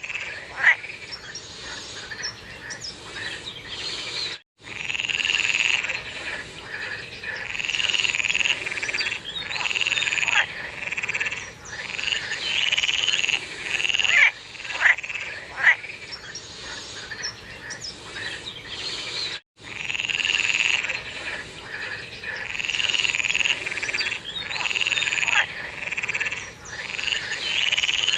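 A dense chorus of many frogs calling together, with louder short calls from nearer frogs standing out every second or two. The sound cuts out completely for an instant twice.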